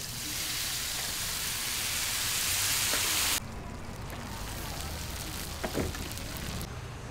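Water poured into a hot pan of pan-fried pork dumplings, hissing and sizzling loudly as it turns to steam, growing louder for about three seconds and then cutting off sharply. A quieter steady hiss goes on from the pan under its metal lid, with a couple of light knocks, and fades near the end.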